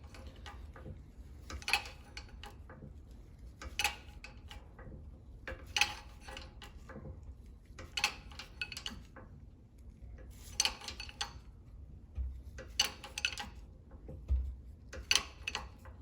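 Shop press being worked to push a tight bearing onto an axle shaft: short metallic clinks and clanks about every two seconds.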